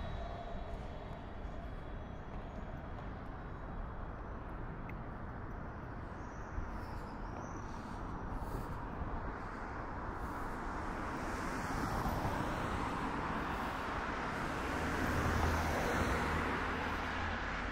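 City street traffic: a steady wash of road noise, with a motor vehicle passing close in the second half, getting louder to a peak shortly before the end and then easing off.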